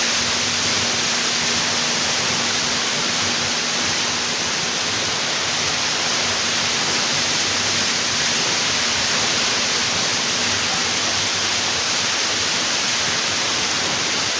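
Indoor waterfall feature: a steady rush of falling water, even and unbroken.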